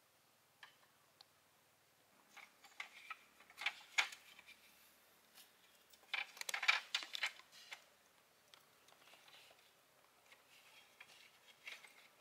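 Light clicks and knocks, bunched in two flurries about two to four seconds in and six to seven and a half seconds in, with a few single ticks between.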